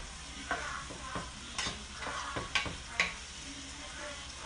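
Wooden spoon stirring sautéing garlic, onion and tomato in a frying pan, knocking and scraping against the pan about five times at uneven intervals over a steady sizzle.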